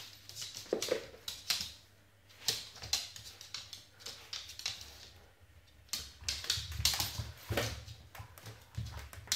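A dog's plastic cone collar knocking and scraping on a wooden floor, mixed with the dog's claws clicking, in irregular bursts of taps with short lulls.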